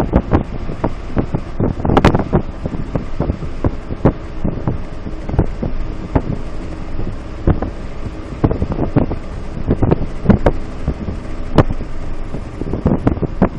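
Car driving, heard from inside the cabin: a steady engine drone under road noise, broken by frequent irregular thumps and rattles.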